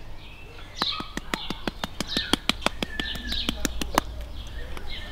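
Small birds chirping, with a fast, even run of sharp clicks at about six a second from about a second in until near the end.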